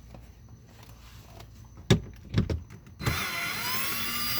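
Two knocks, then about three seconds in a cordless drill-driver with a Torx bit starts spinning, a loud motor whine with shifting pitch as it backs out a door-trim screw.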